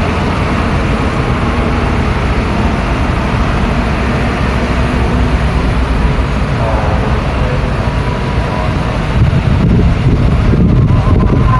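Road traffic on a busy street: a continuous mix of vehicle engines and tyre noise passing by, growing a little louder near the end as a vehicle comes close.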